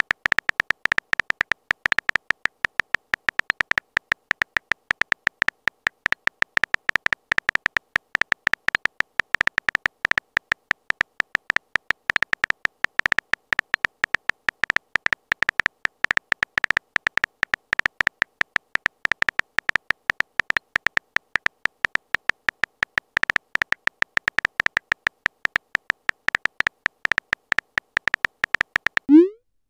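Rapid keyboard typing clicks from a texting app's typing animation, a quick run of short, even clicks. A short rising tone comes near the end.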